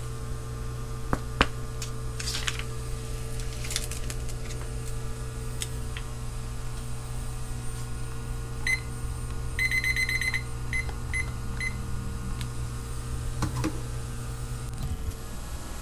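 Digital kitchen timer beeping as its buttons are pressed: one beep, a fast run of beeps, then three more single beeps. Under it, an induction hob hums steadily beneath a pot of water and stops shortly before the end. In the first few seconds a frozen food pouch rustles as it is handled.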